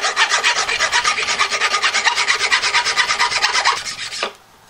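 Mill file rasping in quick, short back-and-forth strokes across a brass screw head left proud of the wood, filing it down flush. The filing stops shortly before the end.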